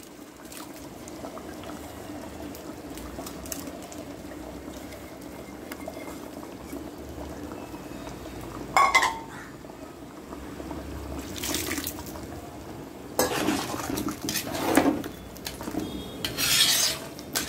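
A metal spoon stirring thick curry in a large metal pot, scraping and clinking against the pot in repeated strokes through the second half. A steady low hum runs underneath in the first half.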